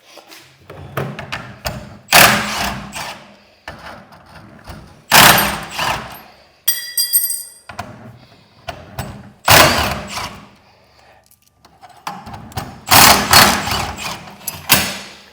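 Cordless impact wrench (Milwaukee M12) run in short bursts, about five times, backing out the bolts of a broken garage door hinge, with brief metallic clinks of hinge hardware in between.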